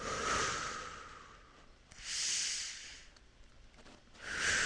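A man breathing slowly and deeply, in through the nose and out through the mouth: three long, audible breaths about two seconds apart.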